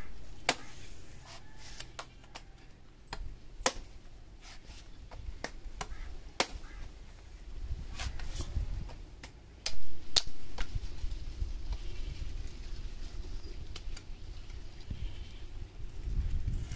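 Green tender coconut being hacked open with a heavy curved billhook knife: a string of sharp, irregular chops into the husk, some much louder than others.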